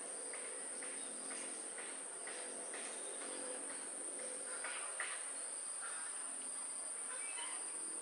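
Insects buzzing in one steady high-pitched tone, with short bird chirps scattered through it and a single sharp tick about five seconds in.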